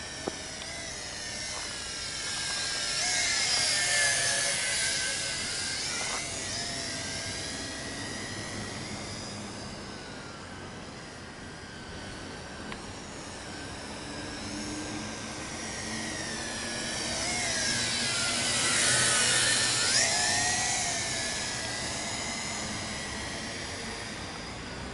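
Tarantula X6 hexacopter drone's motors and propellers whining as it flies, the pitch sliding down and up with throttle. It swells loudest about four seconds in and again near the end, with a single click just at the start.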